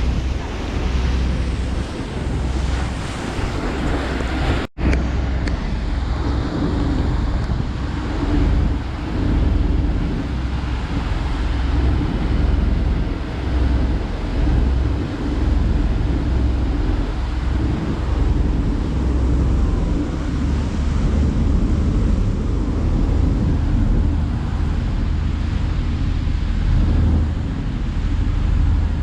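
Wind buffeting the microphone on a moving boat, over the steady hum of the boat's engine and water rushing past, with a brief dropout about five seconds in.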